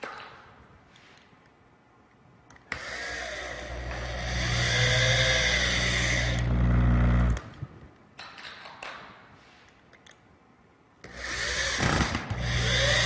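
Power drill driving screws into wooden boards in two runs, one of about four and a half seconds and a shorter one near the end, its pitch dipping under load. Light clicks and knocks between the runs.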